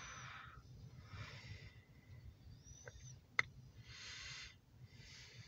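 Faint breathing close to the microphone: soft breaths about a second or so apart, with a single sharp click about three and a half seconds in, over a low steady rumble.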